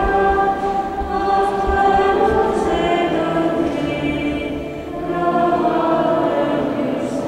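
A choir singing slow, long-held chords, with a new phrase starting about five seconds in.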